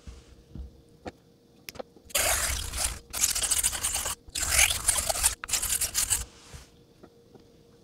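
A thin, flexible French straight razor scraped edge-and-spine flat across an Atoma 600 diamond plate in about four strokes of a second each, grinding to rebuild a missing bevel. A few faint clicks come before the strokes, as tape goes on the razor's spine.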